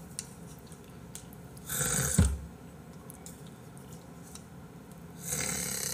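A person's eating noises close to the microphone: a loud breathy mouth sound about two seconds in that ends in a short low throaty sound like a burp, and another breathy noise near the end.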